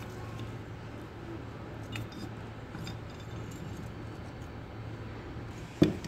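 Light metallic clicks from the steel parts of a paper cup machine's knurling unit being handled, with one sharp metal knock near the end, over a steady low hum.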